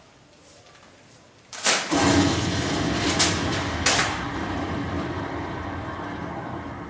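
Explosion sound effect: a sudden blast about a second and a half in, two further sharp cracks over the next two seconds, and a long rumble slowly fading away.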